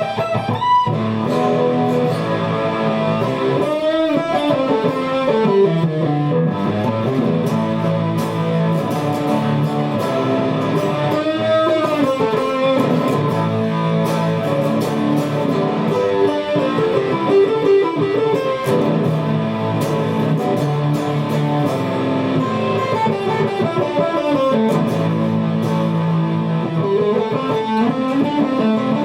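Guitar music: held notes with sliding pitch glides that recur every few seconds.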